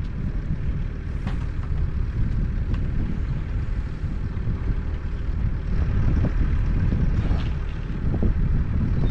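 A vehicle engine running steadily with a low rumble, with a few light clicks and knocks.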